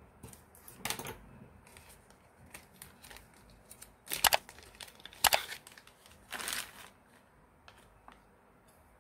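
Small clear plastic zip bag crinkling and rustling in short bursts as it is handled and opened, the loudest crinkles about halfway through.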